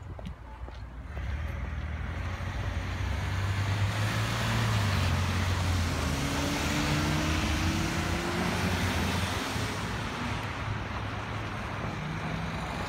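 Cars driving past at a city intersection: engine hum and tyre noise swell from about a second in, and one car's engine note rises as it accelerates through the middle.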